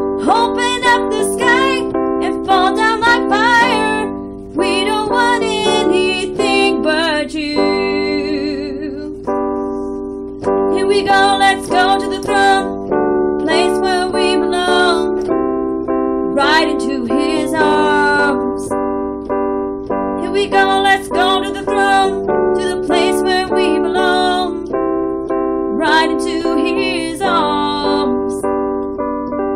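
A woman singing a slow worship song over sustained keyboard chords, with phrases that break and resume and one held note with vibrato about eight seconds in.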